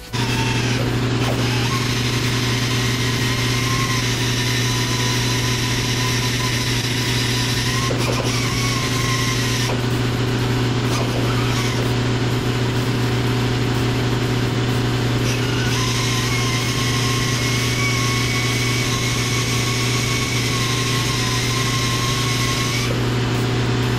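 An engine running steadily at constant speed, with a high whine over it that drops out for several seconds in the middle and again near the end.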